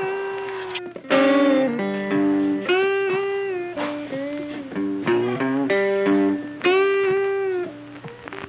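Background music: a guitar tune of plucked notes, some sliding in pitch.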